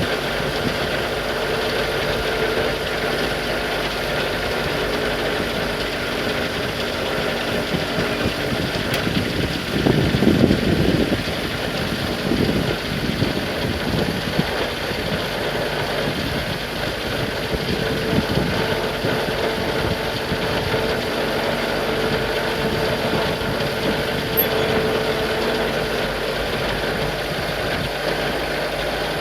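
Tractor engine running steadily while it works its forks. It grows louder for a couple of seconds about ten seconds in, then settles back to an even run.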